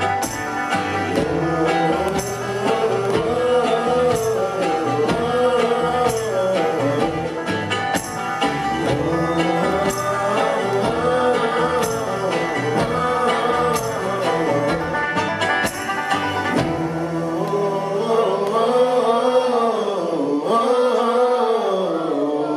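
A live acoustic bluegrass string band plays the closing stretch of a song, with steady strummed strikes under a melody that bends up and down. About two-thirds of the way through the bass drops out, the playing thins, and near the end the melody slides down to a final note.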